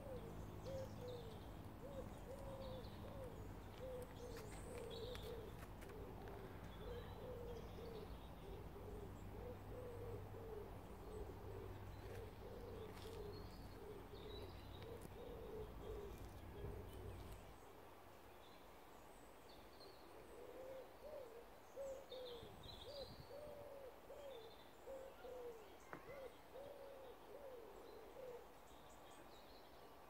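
Pigeons cooing: low, soft notes, a few a second, in long runs with a pause about two-thirds of the way through. A steady low hum underneath stops suddenly a little past halfway.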